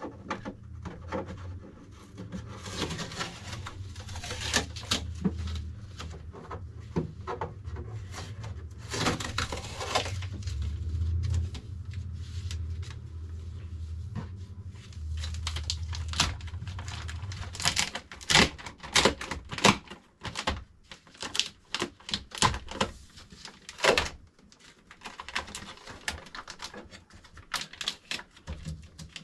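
Unboxing handling noise: a run of irregular clicks, taps and rustles as packaging and printer parts are moved about, sharper and more frequent in the last third. A steady low hum sits underneath and stops about two-thirds of the way through.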